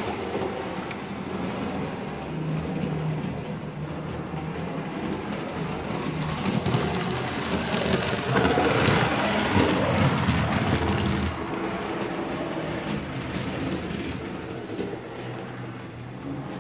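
HO scale model steam locomotive running along the layout track, a steady mechanical running noise that grows louder as it passes close by, then drops off suddenly about eleven seconds in.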